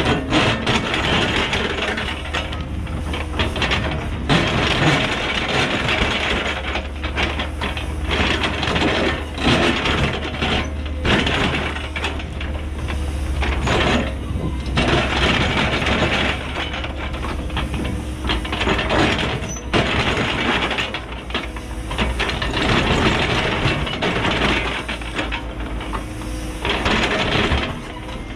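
Cat 314E excavator ripping hard bedrock with a steel ripper tooth: loud, irregular scraping, grinding and cracking of rock as the tooth is dragged through, over the steady running of the diesel engine.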